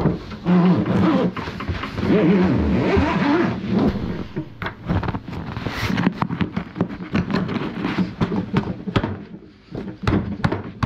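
Hands working on a car seat and its leather cover: a run of clicks, knocks and rustles. In the first four seconds there is also a louder wavering pitched sound over a steady low tone.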